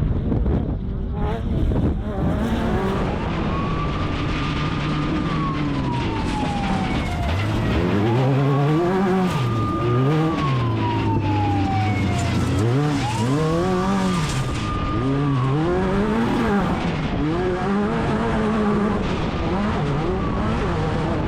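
Class 10 off-road race buggy's engine revving hard, its pitch climbing, holding and dropping again several times as the car accelerates and lifts off, over a steady rush of wind and dirt noise.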